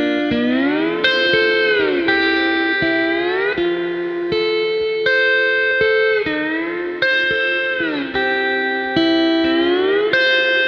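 Hawaiian-style guitar music, sustained chords sliding smoothly up and down in pitch between held notes, as a steel guitar plays.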